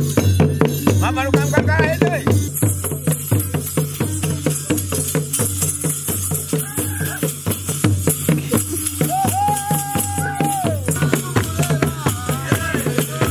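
Traditional Rwandan drumming on a row of tall standing drums in a steady, repeating rhythm, with dense rattling percussion and group singing over it. A voice holds one long high note about two-thirds of the way through.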